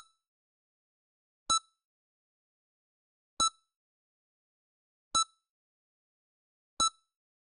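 EKG heart monitor beeping: four short, identical electronic beeps, about one every 1.8 seconds, with silence between them.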